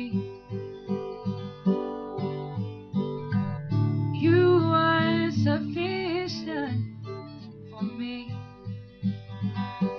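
Acoustic guitar strummed as song accompaniment, with a woman singing along, her voice strongest about halfway through.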